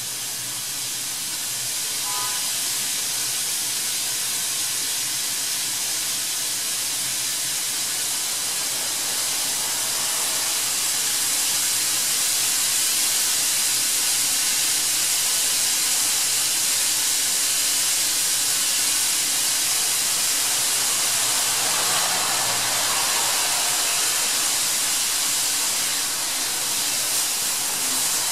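Steady high hiss that grows a little louder about twelve seconds in, with a few faint short chirps.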